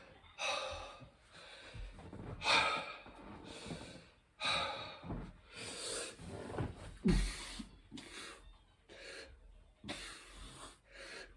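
Heavy, gasping breaths of a man exerting himself through burpees, one hard breath every two to three seconds. A few dull thumps of his body landing on the floor come with them, the loudest about seven seconds in.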